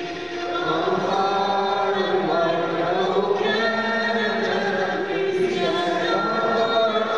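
A congregation singing a song together, many voices holding long notes.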